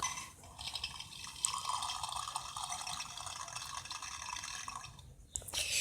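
Toy refrigerator's water dispenser playing a pouring-water sound effect through its little speaker. It runs for about five seconds, then stops shortly before the end.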